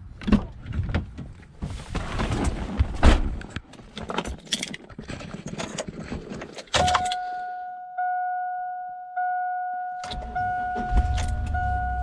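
Clicks and rustling of someone getting into a 2001 Chevrolet Silverado 2500HD, then the truck's warning chime sounding steadily, renewed about once a second, from about seven seconds in. About ten seconds in the engine starts right up and settles into a low idle under the chime.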